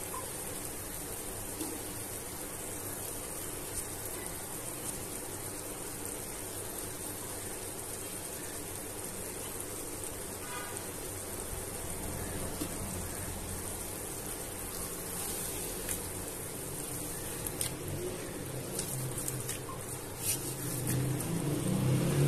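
Vegetables simmering in chili and soy sauce in a pot on a low flame: a steady soft sizzle and bubbling, with a few light clicks near the end.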